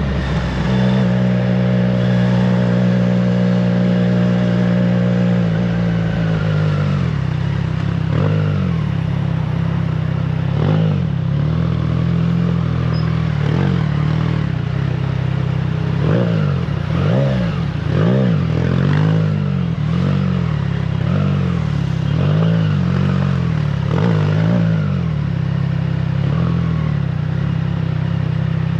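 Triumph Trident 660's three-cylinder engine through an aftermarket FireTong exhaust, ridden on the road. The note holds nearly steady and sags slowly for about six seconds, then rises and falls again and again as the throttle is opened and closed through the gears.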